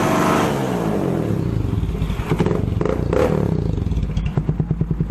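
Motorstar Cafe 400 motorcycle engine revved high, its pitch falling away as the throttle closes, with a couple of short blips, then settling into a pulsing idle near the end. It is being revved hard to burn out carbon deposits.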